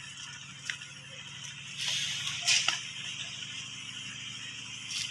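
A long harvesting pole poked into a weaver-ant nest: a few sharp separate knocks and a brief rustle of leaves about two seconds in, over a low steady hum.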